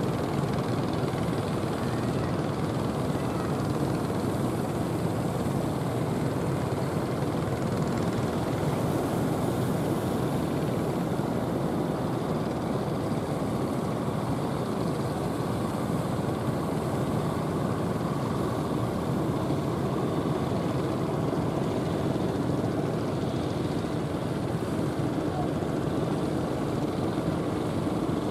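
Fishing-boat engines running steadily out on the water, a continuous even drone with a fast flutter and no change in level.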